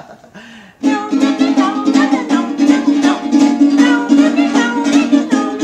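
Small acoustic guitar strummed in a steady, even rhythm of chords, starting about a second in.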